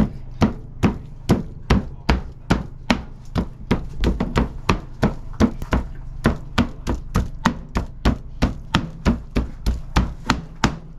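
Knife chopping cooked pork butt on a cutting board in a steady, even rhythm of about two and a half strokes a second.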